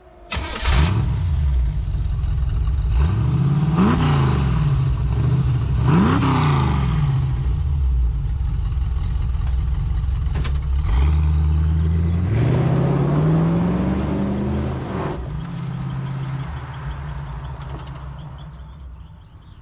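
Hot-rodded 1934 Ford pickup's 350 Chevy small-block V8 with triple carburetors and headers starting up, revved twice and idling with a lumpy exhaust note. About twelve seconds in it rises in pitch as the truck pulls away, then fades out.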